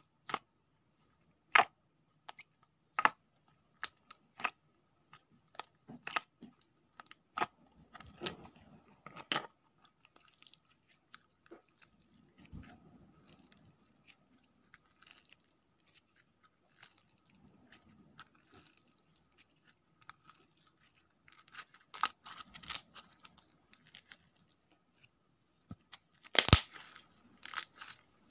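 Pink slime being squeezed, poked and stretched by hand, giving scattered sharp clicking and popping sounds with softer squelching in between. A run of louder pops comes about 22 seconds in, and the loudest pop comes near the end.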